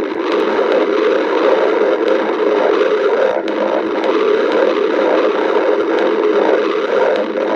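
A person's stomach growling: a loud, unbroken low rumble that flutters a few times a second.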